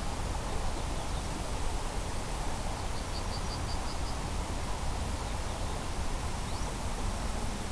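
Steady rushing outdoor noise, with a small bird giving a quick run of six high notes about three seconds in and a short rising whistle a few seconds later.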